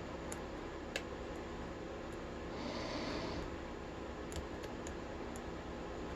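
Faint, sparse clicks of a lock pick and tension wrench working the pin stack of a small brass padlock, over a steady background hiss and hum, with a brief soft rush of noise near the middle.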